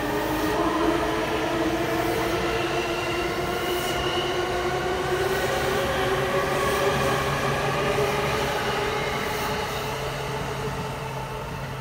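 JR E217 series electric train accelerating out of a station: its traction motors whine in several tones that rise slowly in pitch, over wheel and rail noise. The sound fades near the end as the last car pulls away.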